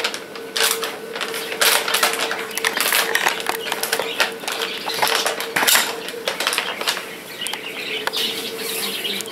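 Plastic dry-food bag crinkling and rustling as it is torn open and handled by hand, in a dense run of irregular crackles. A steady faint hum runs underneath.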